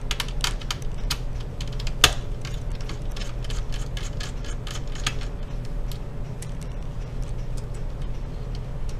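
Small screwdriver backing a screw out of a laptop's hard-drive bay: a run of light, irregular clicks and ticks, thick for about five seconds and then sparser, with one sharper click about two seconds in.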